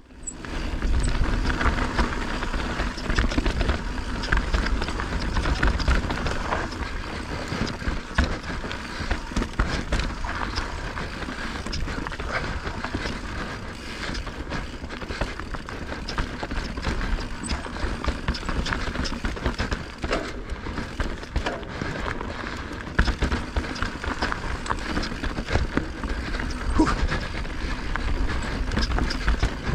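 Mountain bike riding fast down a rocky dirt trail: a steady wind rumble on the camera mic, with the tyres crunching over dirt and loose stones and the chain and frame rattling in quick, irregular knocks over the bumps.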